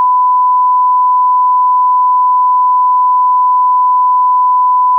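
Steady 1 kHz sine-wave reference tone, the audio line-up tone played with SMPTE colour bars for setting audio levels.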